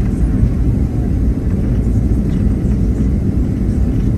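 Steady low rumble of a Boeing 737-700's CFM56-7B engines and airframe heard inside the passenger cabin.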